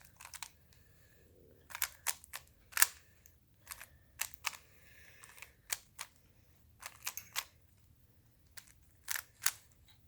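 Rubik's Cube being solved by hand: its plastic layers turned quickly, giving sharp irregular clicks and clacks, often in quick groups of two or three.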